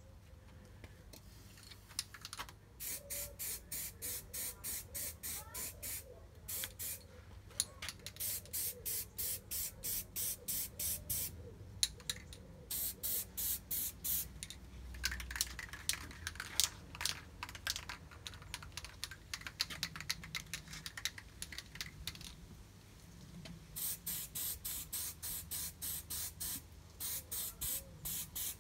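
Aerosol can of primer sprayed in quick short bursts, about three or four puffs a second, in several runs with short pauses between them.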